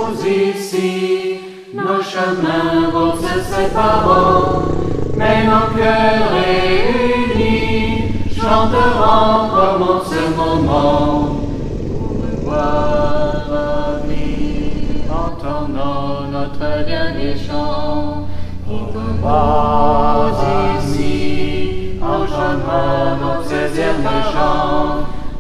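Background music: a song with group singing, in phrases throughout, with a brief dip about a second and a half in.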